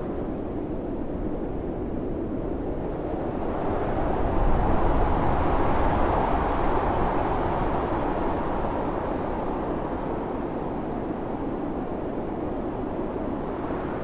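Blizzard wind howling in a steady rush. A gust swells about four seconds in and slowly eases off.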